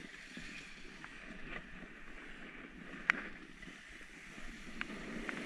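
Steady hiss and scrape of sliding downhill over groomed, crusty snow, with wind on the microphone. A sharp click about three seconds in, and a couple of fainter ones near the end.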